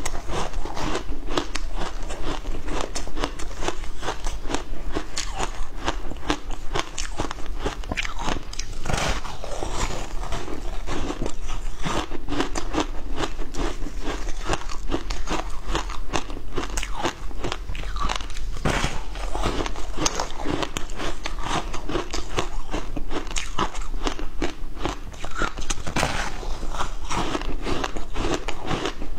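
A person biting into and chewing hard frozen ice, close to a clip-on microphone: a dense, continuous crunching and crackling of ice breaking between the teeth.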